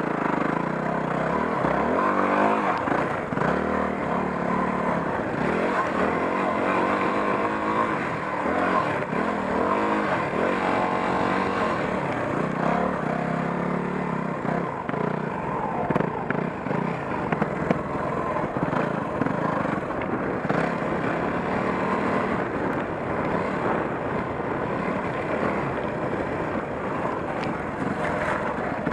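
Yamaha WR250R's 250 cc single-cylinder four-stroke engine running under load, its revs rising and falling continually as the bike is ridden.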